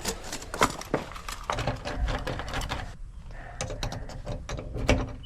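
Quick metallic clicks, taps and scrapes of a locksmith's tools working a lock, with a sharper knock near the end.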